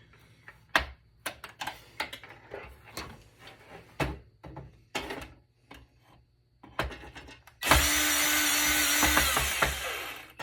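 Clicks and knocks of tools and metal parts being handled. About seven and a half seconds in, a power drill runs steadily for nearly three seconds, driving screws out of a computer's frame, and stops near the end.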